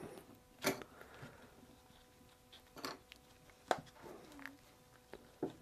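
Quiet handling sounds as a rubber band is tied into a loop by hand: about four light, sharp taps and knocks, with soft rubbing between them.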